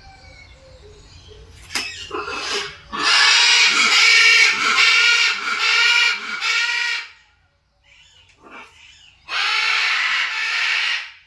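Macaw giving loud, harsh, raspy squawks: one long call of about four seconds, then a shorter one of about two seconds near the end.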